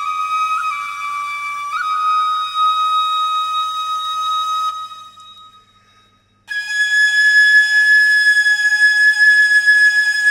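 Six-hole bamboo shinobue (hayashi type, pitch seven) playing a slow Shinto shrine-dance melody in long held notes, with two quick grace-note flicks on the first note. That note fades away about five seconds in, and after a pause of about a second a louder, higher note comes in and is held.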